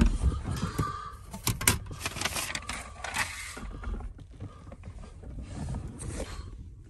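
Rummaging through clutter in a car: papers and plastic bags rustling, with irregular clicks and knocks as objects are moved about.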